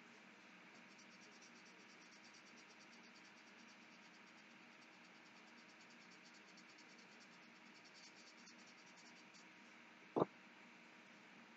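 Near silence: quiet room tone with a faint, fast, high ticking through most of it. One short knock about ten seconds in is the loudest sound.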